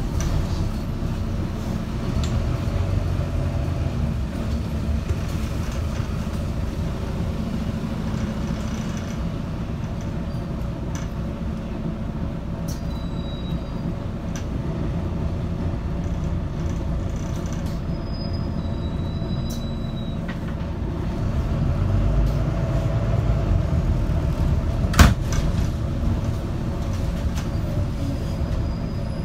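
Volvo B9TL double-decker bus heard from the lower deck: its six-cylinder diesel engine and drivetrain running under way with steady road rumble, swelling about three-quarters of the way through. A single sharp knock near the end.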